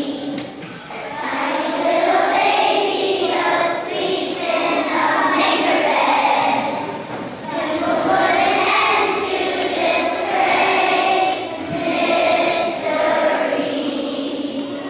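A large choir of young children (kindergarten to second grade) singing a song together, phrase after phrase with short breaths between.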